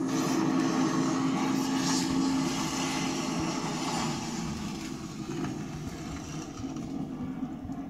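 Exploding-transformer Halloween prop's electrical arcing sound effect: a steady low buzz with crackling hiss over it, fading gradually over the last few seconds.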